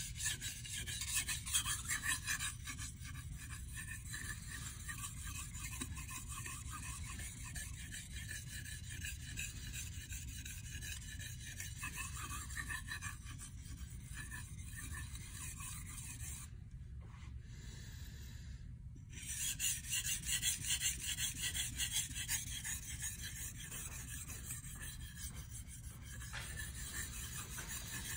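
Kitchen knife blade being sharpened on a whetstone: quick, steady back-and-forth strokes of steel on stone making a rhythmic scraping rasp. The strokes stop for about two seconds a little past the middle, then resume more strongly.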